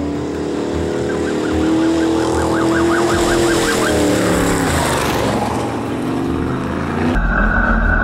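Trophy truck race engine at high revs as the truck charges up and passes close by, its pitch climbing on the approach and dropping as it goes by. The sound cuts suddenly to the steady engine drone heard inside the truck's cockpit.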